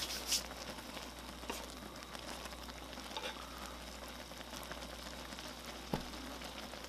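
Ramen broth simmering in a pot, a steady quiet bubbling hiss, with a few light clicks of wooden chopsticks against the noodles and pot as they are stirred and lifted.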